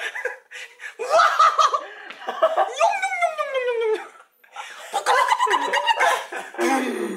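Laughter, and a voice making silly sound effects each time he is tapped with a toy mallet, including one long call that slides down in pitch about three seconds in.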